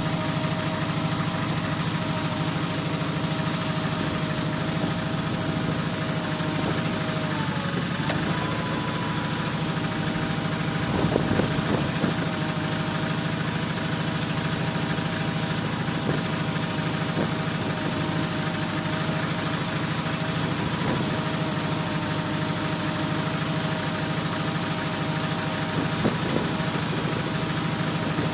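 Ingersoll garden tractor's engine running steadily as its backhoe hydraulics are worked, the pitch dipping and then rising about eight seconds in. A few short knocks come around eleven to twelve seconds and again near the end.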